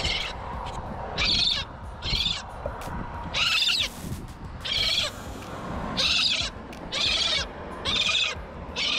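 A gull caught on a fishing line, calling again and again in short high calls, roughly one a second.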